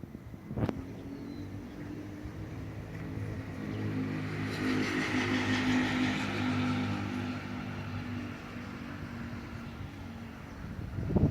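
A motor vehicle's engine hum that grows louder and then fades, as of a vehicle going past. There is a sharp click just under a second in.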